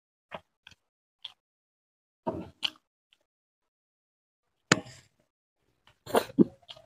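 Eating rice and fish curry by hand, close to the microphone: short separate mouth smacks and clicks between silences, the sharpest a little under five seconds in and a louder cluster around six seconds in.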